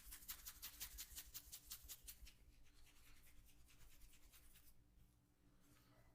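Quick rhythmic patting of hands on skin during a massage, about seven soft pats a second. The pats are strongest for the first two seconds, then grow fainter and stop about five seconds in.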